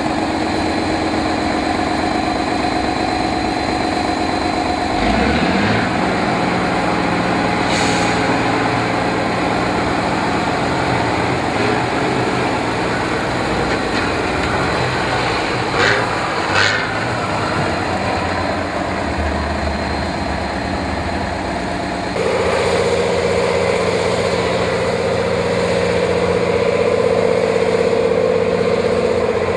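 Engine of a small six-wheeled off-road trial vehicle running under load as it crawls over sandy banks, its note shifting a few times and climbing to higher revs about two-thirds of the way through. Two short sharp knocks come midway.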